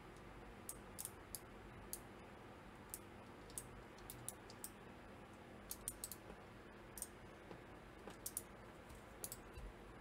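Light, sharp plastic clicks at irregular intervals, about twenty in all, from clicky mechanical key switches being handled and pressed into place on a small keyboard calculator board.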